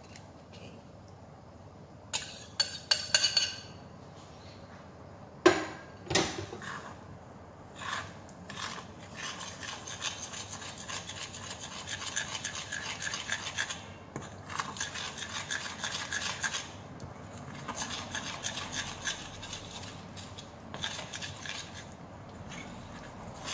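A fork clinks quickly several times against a bowl about two seconds in, and two knocks follow a few seconds later. From about eight seconds in, the fork stirs flour and egg batter in a glass bowl with a steady, rhythmic scraping against the glass.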